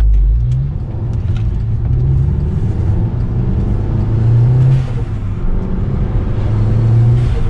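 Turbocharged 2.0 L four-cylinder of a big-turbo (Garrett GT3071R) VW Mk6 GTI heard from inside the cabin, accelerating hard in three pulls. The pitch climbs and drops back between pulls as it upshifts, over steady loud tire noise from Toyo R888R semi-slicks.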